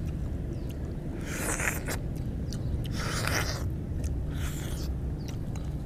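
Eating juicy orange segments: three wet, hissing slurps about a second apart with small mouth clicks in between.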